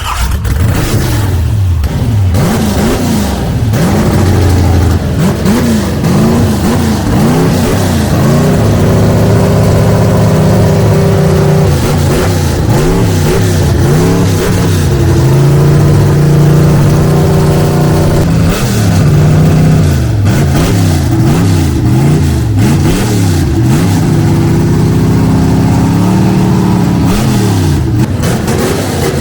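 Car engine revved again and again, its pitch rising and falling about once a second, with stretches held at steady revs, as the car is driven back and forth.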